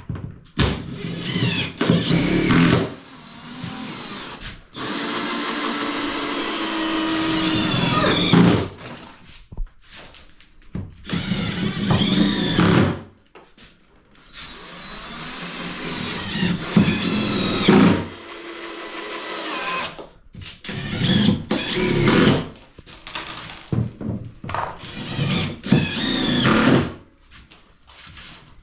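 Power screwdriver driving self-tapping screws down through floorboards into the joists to stop them squeaking. It runs in repeated spells of a few seconds each, with short pauses between screws, and the motor's whine rises as it spins up in the longest run.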